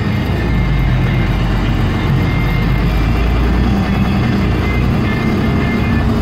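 Loaded grain truck driving, its engine and road noise a steady low rumble heard from inside the cab, with a radio playing music underneath.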